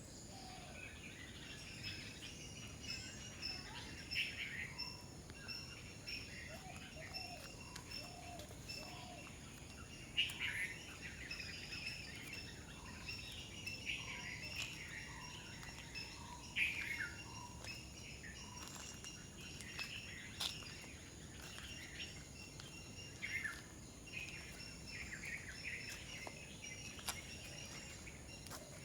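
Wild birds calling repeatedly in short chirps and downward-sweeping whistles, over a steady high-pitched drone.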